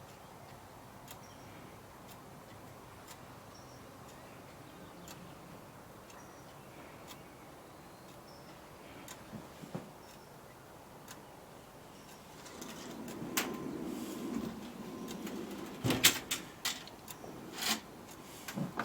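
Faint ticking about once a second, then, about two-thirds through, a steel Snap-on tool box drawer rolling on its slides for a few seconds, followed by several sharp metal clicks and knocks as drawers are shut and opened.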